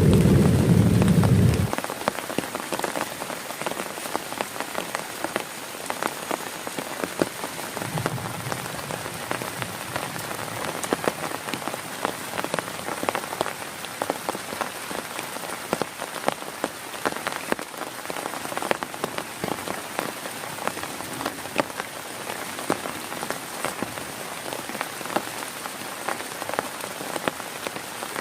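Heavy rain falling on a tent, the drops heard as a dense run of sharp taps. A low rumble of thunder at the start dies away about two seconds in, and a fainter rumble comes back around eight seconds.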